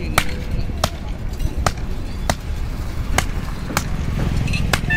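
Two sledgehammers striking a red-hot steel knife blank on a small anvil in turn, hand-forging the blade: about seven sharp metal blows, roughly one every 0.7 seconds.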